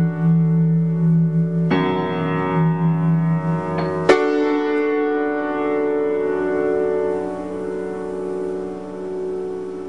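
Upright piano playing slow held chords: a fresh chord is struck about two seconds in and another about four seconds in, and the last one is left to ring and slowly die away.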